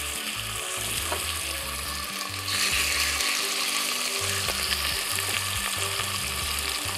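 Marinated chicken thighs sizzling as they sear in hot peanut oil in a porcelain-coated cast-iron pot, with more pieces laid in with tongs. The sizzle grows louder about two and a half seconds in.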